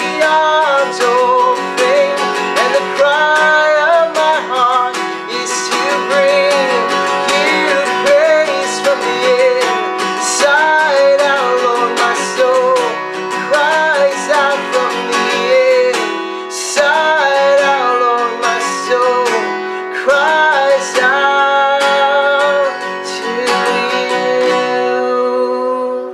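Acoustic guitar strummed steadily while a man sings a worship song over it; the music ends right at the close.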